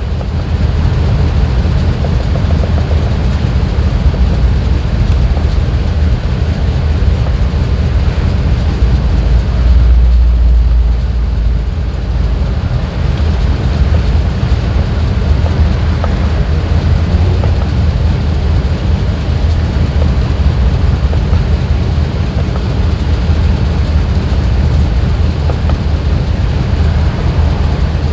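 2001 GMC Yukon's 6.0-litre V8 running at idle with a steady low drone; scan data shows a random misfire, worst on cylinders 4 and 5. The drone grows a little louder for a couple of seconds about ten seconds in.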